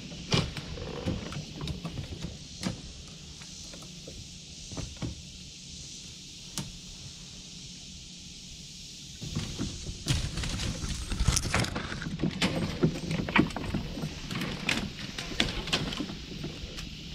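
Leafy tree branches rustling and crackling as they are grabbed and pulled overhead, with knocks on the kayak. It starts with scattered clicks over a soft hiss and gets much busier and louder about nine seconds in.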